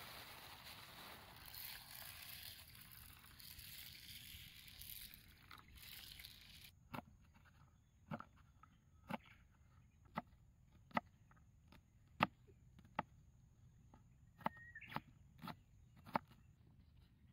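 Dry rice pouring out of a plastic bag into a mess tin, a soft rustling hiss that fades. After about seven seconds a knife chops carrot and onion on a wooden cutting board, a sharp knock of the blade on the board roughly once a second.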